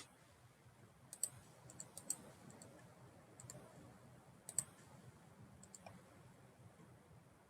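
Computer mouse clicking: a dozen or so quiet, sharp clicks at irregular intervals over a faint low room hum.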